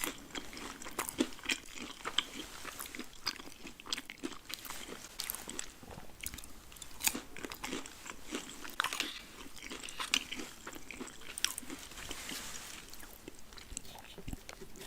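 Close-miked eating: irregular crisp crunches and chewing as food is bitten into and chewed.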